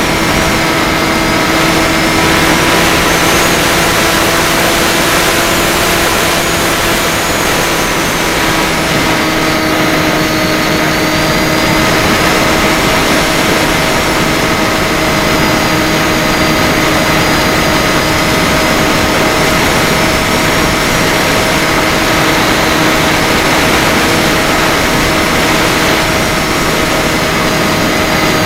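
Bixler 3 RC plane's electric motor and propeller running steadily, heard from the onboard camera, with a constant whine over rushing air. The pitch shifts slightly about eight seconds in.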